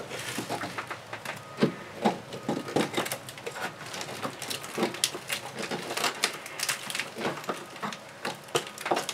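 Rotted wood in a wooden boat's deck structure being picked and pried apart by hand: an irregular run of small cracks, clicks and scrapes, with a few louder knocks.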